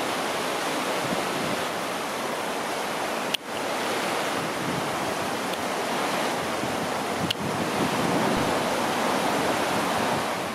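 Steady rush of the River Ogmore in spate, fast brown floodwater churning over its bed, with two short clicks along the way, the first with a brief drop in level.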